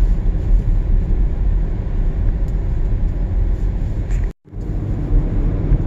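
Road noise inside a moving car's cabin: a steady low rumble of engine and tyres. The sound drops out completely for a moment about four seconds in, then returns.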